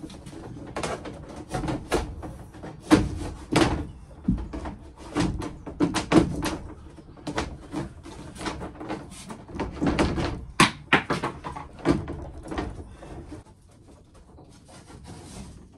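A metre rule and 6 mm solar cable being pushed through the gap above wooden ceiling panels: irregular knocks, taps and scraping against the panels, thinning out about thirteen seconds in.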